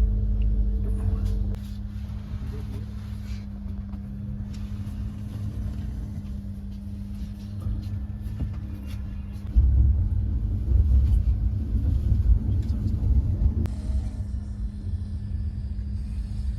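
A passenger train running, heard from inside a sleeper coach: a steady low rumble under a constant hum, with scattered clicks and rattles. The rumble grows louder about halfway through.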